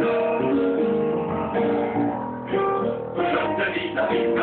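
Music led by a strummed acoustic guitar, with held notes changing steadily.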